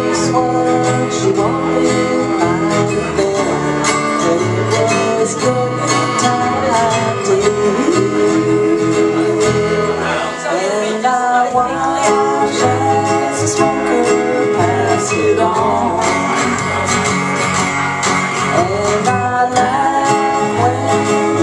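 Live country-rock song: a strummed acoustic guitar and an electric bass under a woman's lead vocal. The bass drops out for a moment a little after halfway, then comes back in.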